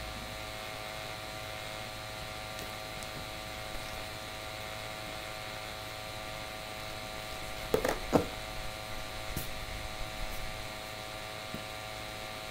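Steady electrical hum made of several unchanging tones. About eight seconds in come two sharp clicks, followed by a few faint small handling noises.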